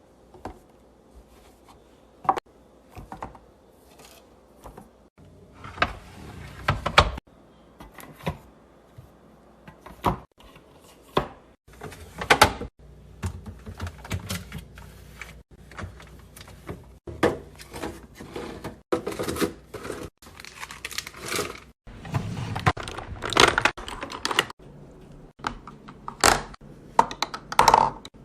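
Food containers, jars and bottles being handled and set down on fridge shelves: irregular clicks, knocks, clinks and rustling.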